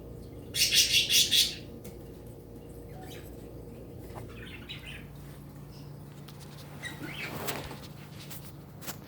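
Pet bird flapping its wings in a quick loud flurry of about five beats, followed by a few fainter rustles and a click over a low steady hum.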